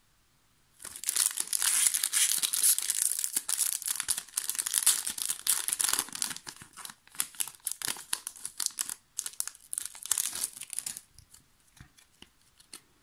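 Pokémon booster pack's foil wrapper being torn open and crinkled in the hands: dense crackling and crinkling starting about a second in, thinning to a few scattered soft clicks near the end as the cards come out.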